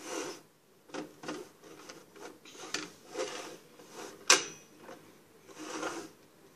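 Plastic parts of a Pie Face game being handled and set up: scattered knocks and rustling, with one sharp click about four seconds in that is the loudest sound.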